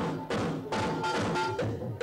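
Techno track played loud from DJ turntables, with a steady driving drum beat and a repeated synth tone.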